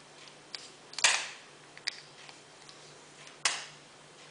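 Cleaning rod worked through a detached Tanfoglio pistol barrel, the rod knocking sharply against the metal: a loud clack about a second in and another near three and a half seconds, with lighter clicks between.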